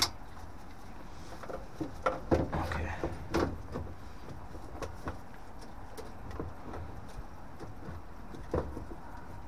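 Scattered clicks and knocks of a replacement brass diverter valve and the parts around it being handled and pushed into place inside a combi boiler's hydraulic block, over a steady low hum. A sharp click comes right at the start and a cluster of knocks about two to three and a half seconds in.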